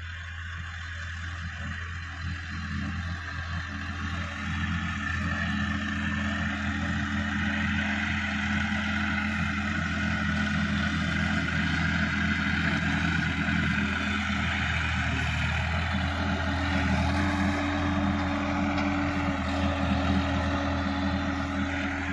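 Sonalika DI-50 RX tractor's diesel engine running steadily under load as it tills a stubble field. It grows louder over the first ten seconds or so as the tractor comes closer, then holds.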